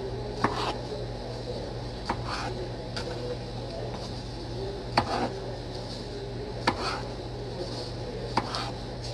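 Knife slicing cherry tomatoes in half on a plastic cutting board: a sharp knock of the blade on the board with each cut, about every one and a half to two seconds, over a steady low hum.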